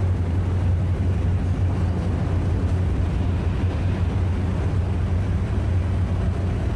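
ATV and side-by-side engines running with a steady low drone inside a ferry's enclosed vehicle deck as the machines drive off.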